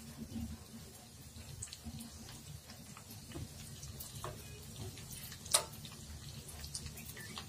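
Cumin seeds and a whole red chili frying in hot ghee in a small tadka pan: a faint sizzle with scattered small crackling pops, one sharper click about five and a half seconds in, over a low steady hum.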